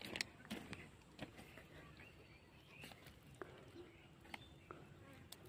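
Near silence: faint outdoor ambience with scattered light clicks and a few faint short chirps.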